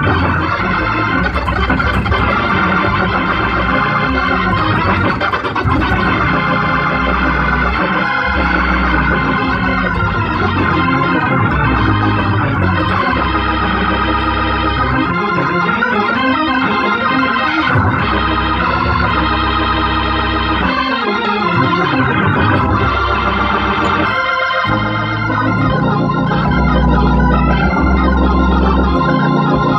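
Hammond organ played gospel-style: full sustained chords on the manuals over deep bass, with runs sweeping up and down the keys around the middle and the bass growing heavier near the end.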